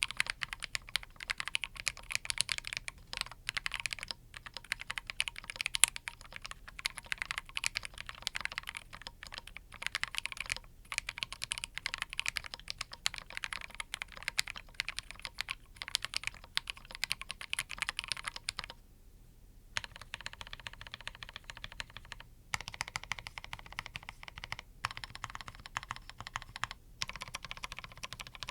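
Fast, continuous typing on a Rakk Haribon mechanical keyboard with lubed Rakk Katala linear POM switches and Novelkeys Charcoal keycaps: rapid keystroke clacks with short gaps and a pause of about a second two-thirds of the way through.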